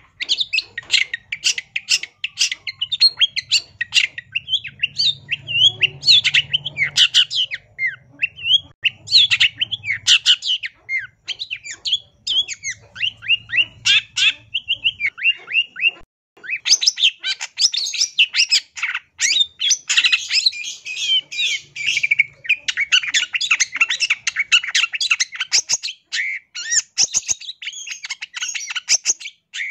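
Long-tailed shrike (cendet) singing a fast, chattering song of rapid short notes, squawks and whistled glides, full of mimicked phrases (isian). It breaks off briefly about halfway through, then resumes denser.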